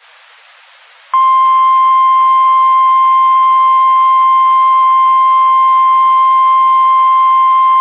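Faint radio hiss for about a second, then the steady single-pitch 1050 Hz warning alarm tone of NOAA Weather Radio cuts in loudly and holds. It is the attention signal that announces a severe weather warning broadcast.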